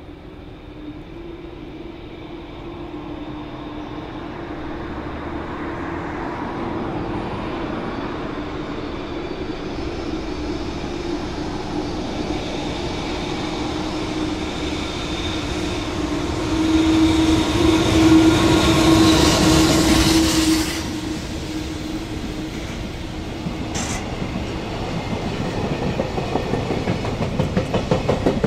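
Electric freight locomotive hauling a container train: its hum and wheel noise grow steadily louder as it approaches, are loudest as it passes beneath, then drop off suddenly. After that comes the rhythmic clickety-clack of container wagons rolling by.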